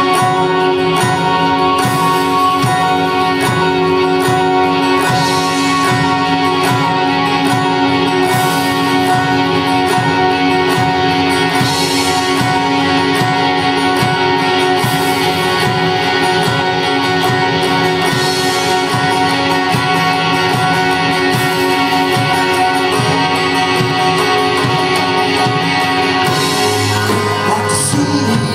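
Live band playing an instrumental passage: electric and acoustic guitars over a steady drum beat, with no vocals.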